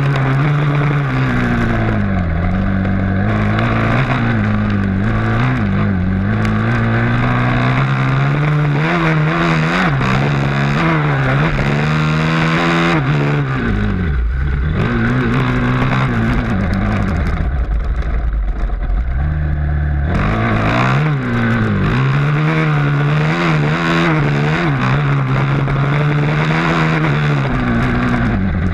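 Motocross dirt bike engine heard from on board while racing, revs rising and falling again and again as it shifts and accelerates between corners, dropping low about halfway through before picking up again.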